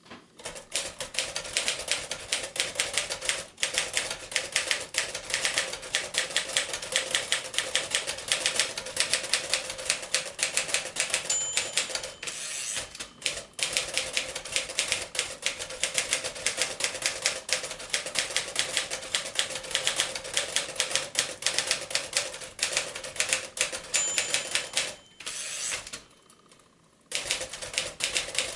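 1939 Royal Arrow portable typewriter typing at a fast, steady pace. Its line-end bell rings twice, each time followed by the carriage being returned, and the typing pauses briefly near the end.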